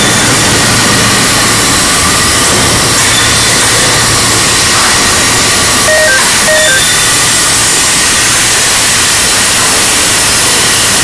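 Loud, steady machinery noise from an overhead crane carrying a steel plate through a steel fabrication shop, with two short beeps about six seconds in.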